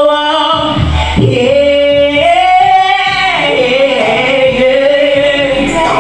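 A woman singing live into a handheld microphone over backing music, holding two long notes one after the other.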